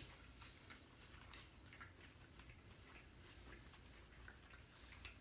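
Near silence with faint, scattered soft clicks of someone chewing a cheeseburger.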